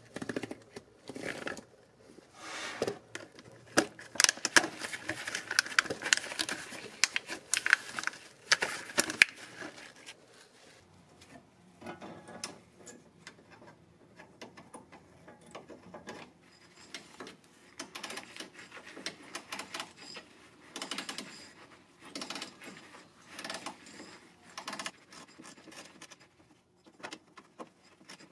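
Hand tools and metal hardware being handled during a transmission cooler install: irregular clicks, rattles and scrapes. They come thickest and loudest in the first ten seconds, then thin out into scattered clicks.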